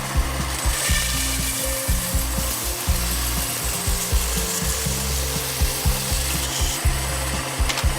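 A power tool working wood with a steady rasping noise, under background music with a bass line and a regular beat.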